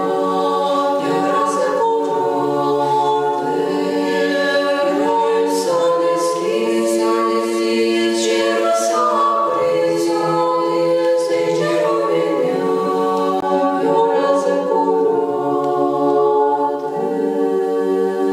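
Women's choir of Orthodox nuns singing a Romanian Christmas carol a cappella, several voices in harmony with long held notes.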